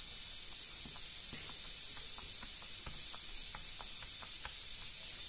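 Pen point tapping and pressing over a paper template onto craft foam, marking the lines in dots: a scatter of faint, irregular light ticks over a steady hiss.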